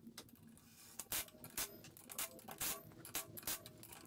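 Light clicks and knocks of metal drill-press parts and tools being handled during assembly, a string of short sharp knocks about half a second apart from about a second in.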